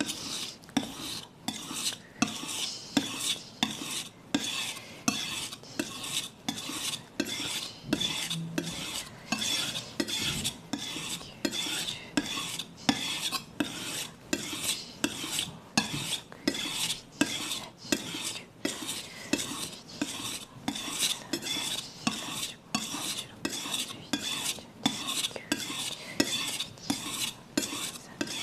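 Steel kitchen knife scraping on a wet whetstone, one pull stroke at a time toward the sharpener, about two strokes a second in an even rhythm. This is the one-directional pass on the second side of the edge at a shallow angle, a third as many strokes as on the first side.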